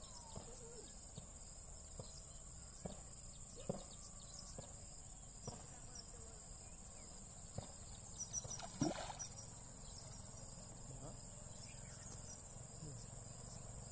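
Steady high-pitched insect chorus, crickets or similar, droning on without a break, with scattered faint clicks and a brief louder knock about nine seconds in.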